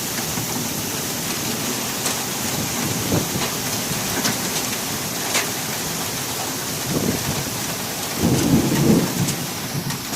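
Heavy rain falling steadily, with scattered drops tapping close by. A low rumble of thunder comes about eight seconds in and lasts about a second; it is the loudest moment.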